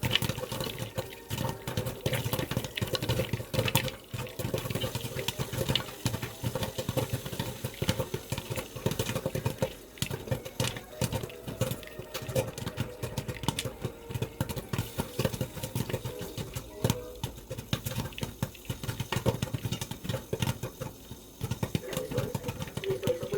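Popcorn kernels popping in a pot, with rapid, irregular pops over a steady low hum.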